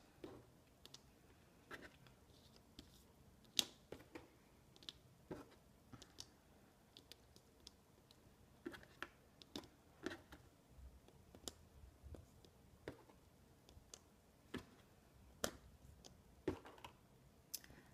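Small plastic tile spacers being set down one at a time on a laminated paper mat: faint, irregular light clicks and taps, about one a second.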